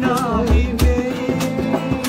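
A man singing a Sinhala song in a wavering voice, accompanied by guitar with a low beat underneath.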